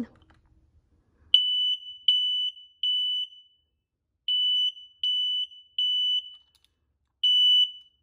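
FireX G6 smoke alarm sounding its test alarm when its test button is pressed, a high beep in the temporal-three pattern. Three beeps, a pause, three more beeps, then the first beep of the next set near the end.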